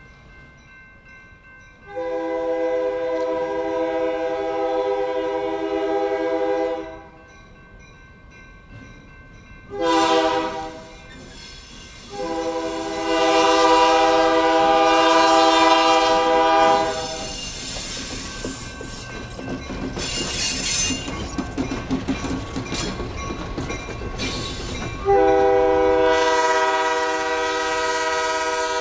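Diesel freight locomotive's air horn sounding a crossing signal as it approaches: a long blast, a short one, and another long one, the horn a chord of several steady notes. The train then rolls past close by with wheels clattering over the rail joints, and the horn sounds one more long blast near the end.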